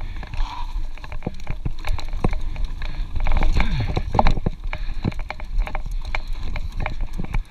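Mountain bike riding down a dirt trail: tyres on the ground give a steady low rumble, with many sharp clacks and rattles as the bike runs over bumps.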